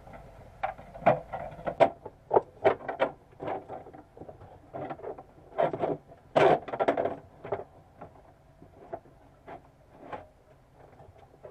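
Irregular knocks and clatter of a marine air conditioner's blower and duct collar being handled and fitted back onto the unit, with a cluster of louder knocks about six to seven seconds in.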